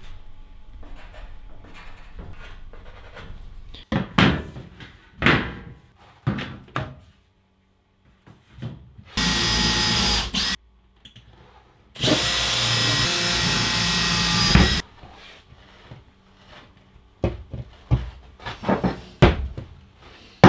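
Power drill running in two steady bursts, one of about a second and a half and one of about three seconds, with a high whine, while a metal pegboard panel is fixed to the wall. Sharp knocks and clatter from handling the panel and tools come before and after the bursts.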